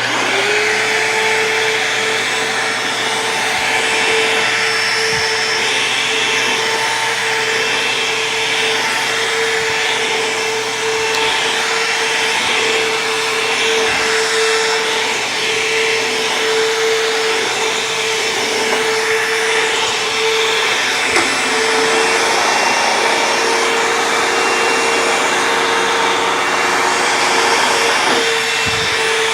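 Bissell CleanView II Plus bagless upright vacuum cleaner switched on. Its motor spins up within a second to a steady whine and keeps running evenly.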